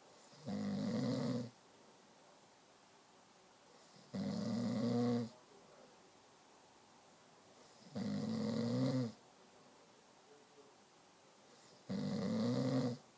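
Snoring: four snores about four seconds apart, each lasting about a second, with quiet breathing gaps between them.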